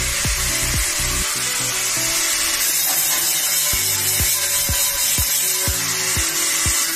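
Handheld angle grinder grinding a welded seam on a cut-open steel barrel, a steady high-pitched grinding noise, over background music with a steady beat.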